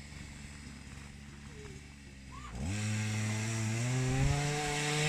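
Small petrol engine of a ride-on vehicle: quiet at first, then about two and a half seconds in it revs up abruptly and keeps running with a slowly rising pitch.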